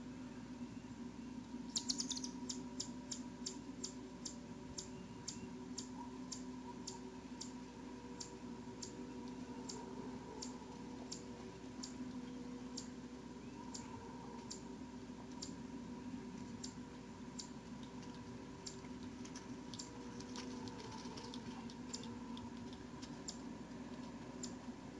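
A run of short, sharp high-pitched ticks that starts about two seconds in, quick at first and then slowing to roughly one or two a second, over a steady electrical hum.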